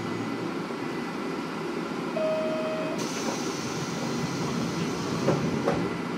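JR Kyushu KiHa 47 diesel railcar, fitted with a replacement Komatsu engine, idling while standing at a platform. A short beep sounds about two seconds in, a steady hiss starts about halfway and stops near the end, and a few light knocks come just before the end.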